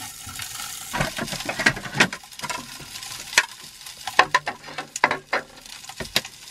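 Maultaschen sizzling in a frying pan while a fork scrapes and turns them against the pan. Later come dishes clattering and a cupboard door knocking shut.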